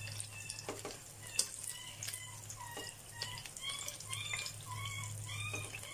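Hot cooking oil sizzling and bubbling gently in a frying pan, with many short chirping pops and a few sharp clicks of the utensil against the pan as the last pieces of fried pork are lifted out.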